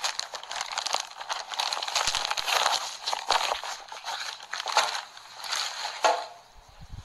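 Plastic wrapping and fabric rustling and crinkling close to the microphone, a dense run of crackles that comes and goes in waves.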